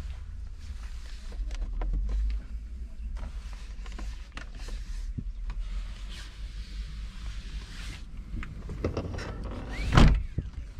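Rubbing and handling noise over a low rumble, with scattered light clicks, as a phone camera is moved about inside a parked car. About ten seconds in comes one loud thump, the car door being shut.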